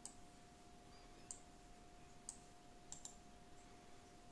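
Computer mouse buttons clicking, about five sharp clicks spread over the few seconds, the last two in quick succession, over a faint steady hum.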